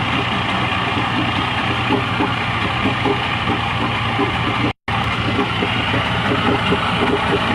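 Ship's lifeboat engine running steadily at idle, with an even, rhythmic chugging. The sound cuts out completely for a split second about two-thirds of the way in.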